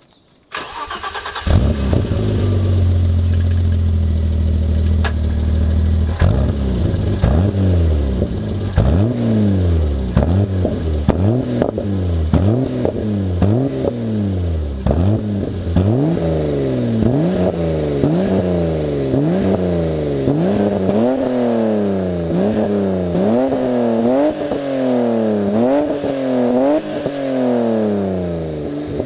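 BMW Z1's 2.5-litre straight-six starting up about half a second in, running at a steady idle for a few seconds, then being revved over and over, each rev rising and falling about once every second or so, with the later revs going higher.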